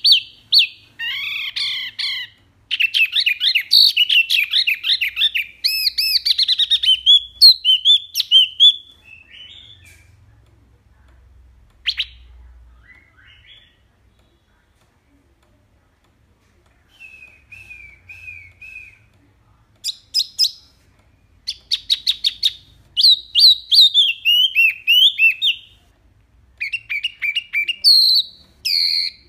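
Wambi mini songbird singing in bursts of rapid, sharp repeated notes, the 'tembakan' song style, in several phrases with pauses between. The phrases are dense near the start, there is a quiet gap mid-way, and the song picks up again for the second half.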